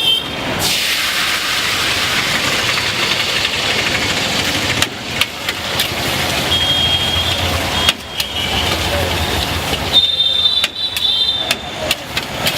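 Busy street traffic: vehicle engines running past, with short high-pitched horn toots a few times, around six and ten seconds in.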